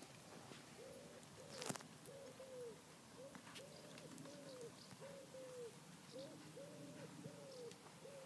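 A pigeon cooing, a long run of soft, low coos in short repeated phrases, with one sharp click about two seconds in.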